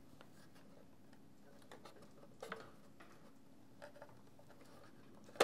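Faint scattered clicks and scrapes of a hand tool working at the clips that hold a record player's mechanism in its wooden base, with one sharp click at the very end as a clip pops free.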